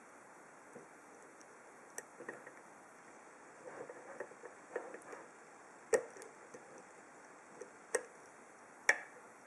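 Lock picking a 50 mm Viro padlock: faint scraping and small metallic clicks as a hook pick probes the pins against a tension bar. Three sharper clicks come about six, eight and nine seconds in.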